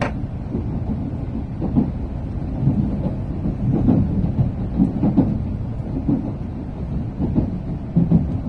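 Low running rumble of a Tokaido Shinkansen train, heard inside the passenger car, with irregular soft thumps every second or so.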